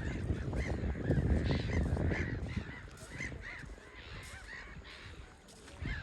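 Seabirds calling over and over, a rapid string of short arched cries. A low rumbling noise runs beneath them, strongest in the first half.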